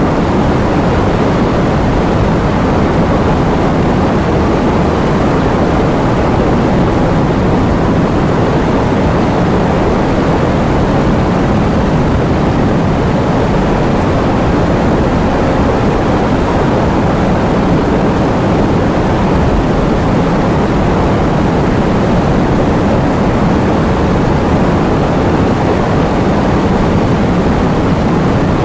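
Heavy rain and strong wind: a loud, steady rushing noise, deep rather than hissy, that holds even throughout with no separate drops or gusts standing out.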